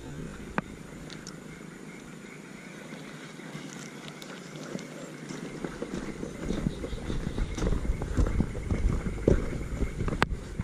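Footsteps and rubbing and knocking on a body-worn action camera as the wearer walks along a muddy dirt track carrying a fishing rod. It grows louder, with uneven low thumps, about halfway through.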